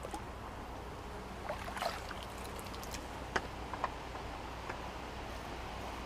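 Steady outdoor background noise with a handful of short clicks and rustles, several in quick succession about two seconds in and a few sharper ones later, from a freshly landed fish being handled in a landing net.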